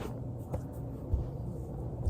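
A steady low rumble with a sharp click at the start, a smaller click about half a second in and a soft low thump just after a second: a body shifting on a foam roller, with light joint pops.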